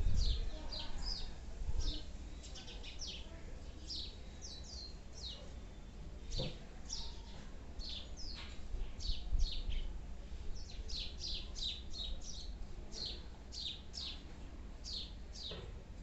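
Small birds chirping: many short, high chirps, each falling quickly in pitch, coming in irregular clusters throughout.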